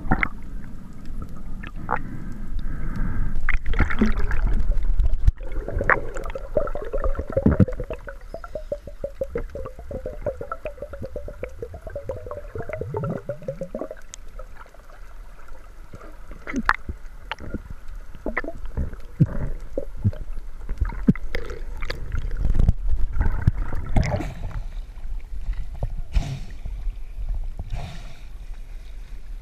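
Underwater sound through an action camera's waterproof housing: muffled water movement and gurgling, with many scattered sharp clicks and a wavering hum for several seconds in the middle. Near the end the camera comes up through the surface.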